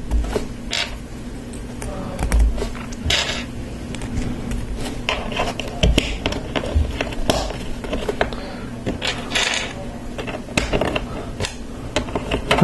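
Small plastic LEGO Technic pieces clicking as pins are pushed into connectors by hand, with brief rustling rattles as loose parts are picked from the pile.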